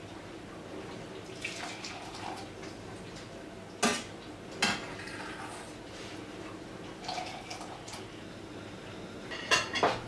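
A metal ladle clinking and scraping against a stainless steel saucepan of tea, with two sharp clinks about four seconds in and a few more near the end.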